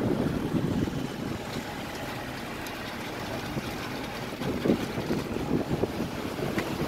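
Wind buffeting the microphone: a low, irregular rumble, louder in the first second, with a few sharper gusts about two-thirds of the way through.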